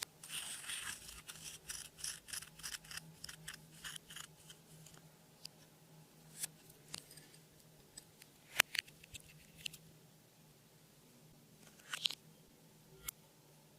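Slime being squeezed and stretched by hand: a quick run of small sticky clicks and crackles for the first few seconds, then scattered single pops, the sharpest about eight and a half seconds in and another cluster near twelve seconds.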